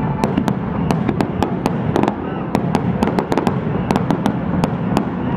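Aerial fireworks display: a rapid, irregular barrage of shell bursts and sharp cracks, several a second, over a continuous low rumble.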